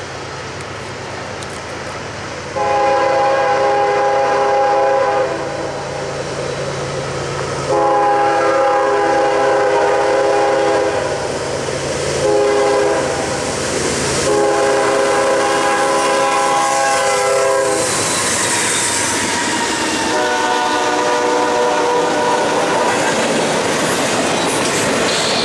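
Norfolk Southern diesel freight locomotive's air horn blowing the grade-crossing signal: two long blasts, a short one and a long one, then a fainter blast about twenty seconds in. The locomotives and double-stack intermodal container cars then roll past with a steady rumble and clickety-clack of wheels on rail joints.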